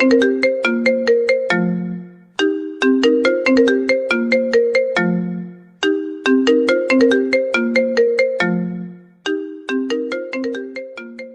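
Mobile phone ringtone melody: a short phrase of quick notes that repeats about every three and a half seconds, about three times, and dies away near the end.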